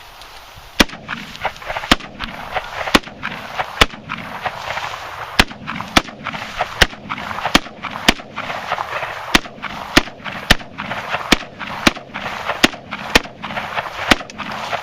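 Century Arms C39 AK pistol in 7.62x39mm, fitted with a muzzle brake, firing a long string of semi-automatic shots. There are about eighteen sharp, loud cracks, roughly one to two a second, each followed by a short echo.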